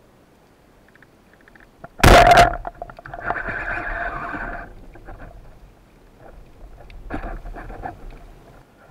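Band-powered speargun fired underwater: one loud sharp crack about two seconds in as the spear shoots out, followed by a rattling buzz for about a second and a half. Another stretch of rattling and knocking comes near the end.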